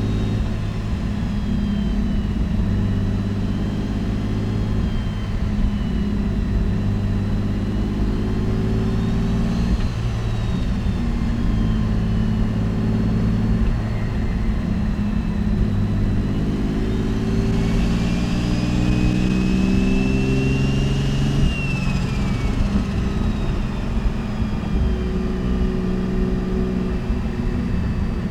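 Big-turbo Mitsubishi 3000GT VR4's V6 engine driving, its note rising and falling with the revs. A high turbo whistle climbs to its loudest about eighteen to twenty-two seconds in, then falls away.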